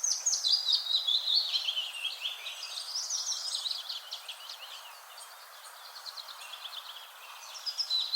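Morning forest birdsong: several small birds chirping and twittering high in pitch, busiest in the first few seconds, thinning out in the middle and picking up again near the end, over a faint steady hiss.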